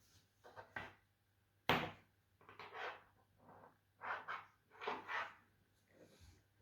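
Handling noise from a small plastic USB-C to VGA adapter being worked on by hand: a sharp knock about two seconds in, then several short scrapes and clicks.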